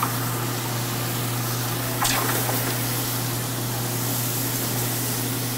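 Chicken stock boiling and sizzling steadily in a hot sauté pan of browned butter, chicken, bacon and spinach, added to stop the butter from burning. A steady low hum runs underneath, with a short tap about two seconds in.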